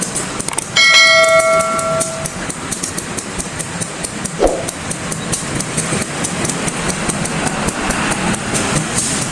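CC 201 diesel-electric locomotive running steadily. About a second in, a single bell-like ring with several overtones sounds and fades away within about a second and a half.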